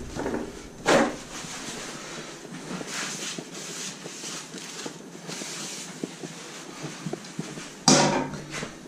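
Kitchen roll pulled and torn from its holder, then paper towel rubbed around inside a frying pan, with two sharper, louder sounds, about a second in and near the end.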